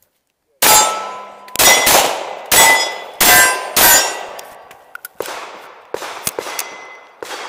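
Semi-automatic pistol fired rapidly at steel plates: six loud shots about half a second to a second apart, with the struck steel ringing after the hits. Several fainter sharp cracks follow in the second half.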